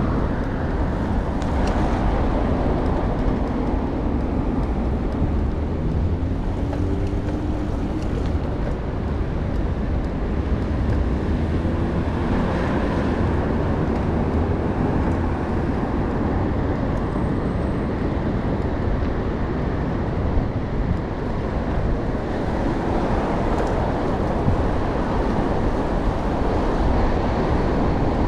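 Steady road noise and low rumble from travelling along a city street in traffic, with no sudden events.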